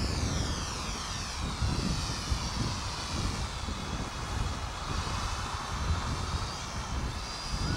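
Toy quadcopter drone flying: its small propellers and motors give a high whine of several tones that slides down in pitch over the first two or three seconds, then holds steady.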